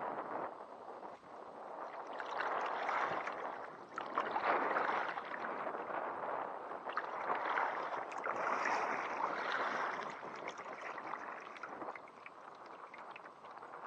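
Kayak paddling: paddle blades dipping and splashing in moving river water, the water noise swelling and fading every second or two, with small knocks and drips.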